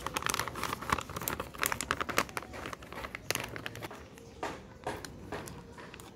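Plastic packaging crinkling and rustling as it is handled, in quick irregular crackles that are busiest for the first three seconds or so and then thin out.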